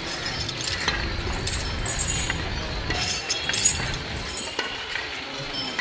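Irregular metallic clinks and jingles from the walking elephants' metal gear, over wind rumbling on the microphone for the first four seconds or so.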